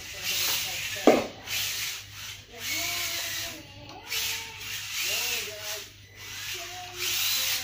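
Kyosho Mini-Z AWD radio-controlled car drifting on a polished marble floor: its tyres hiss as they slide, in surges, while its small electric motor whines up and down with the throttle. A sharp knock about a second in is the loudest sound.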